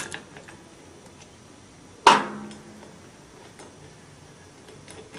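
Half-inch wrench working the hand-wheel nut on a nitrous bottle valve: a few faint light clicks, then one sharp metallic clank with a short ring about two seconds in.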